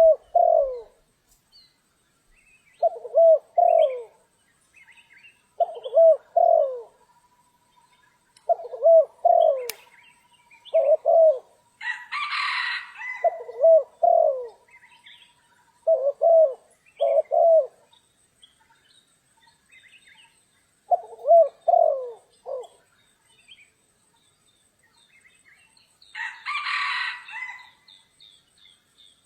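Spotted dove cooing: short phrases of two or three low notes repeated every two to three seconds. Two brief rustling bursts break in, about a third of the way through and near the end.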